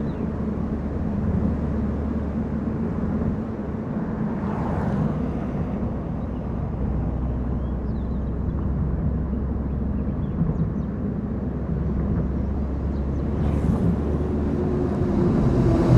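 A car driving steadily on a mountain road: a low engine and tyre rumble, with two brief whooshes, one about five seconds in and one near the end.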